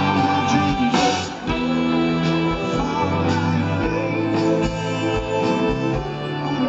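Live pop-rock band playing, with electric guitar and a male lead singer, heard from the audience at an arena concert. The sound dips briefly about a second and a half in.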